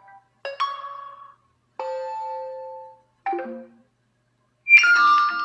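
Mobile phone ringtones played from the phone's speaker one after another: four short snippets of different melodies, each lasting half a second to a second and a half, with brief silences between them. The last one is the loudest.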